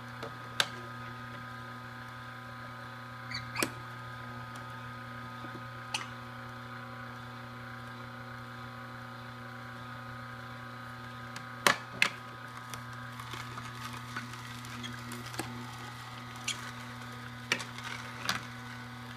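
Horizontal slow (masticating) juicer's motor running with a steady hum, with sharp plastic knocks and clicks now and then as the food pusher and pieces of cucumber strike the feed chute, two close together near the middle and several near the end.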